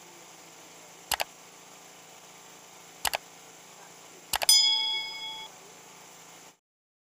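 Subscribe-button sound effect: three quick double mouse clicks about two seconds apart, the last followed by a bell-like notification ding that rings for about a second. Under it runs a faint steady hiss that cuts off shortly before the end.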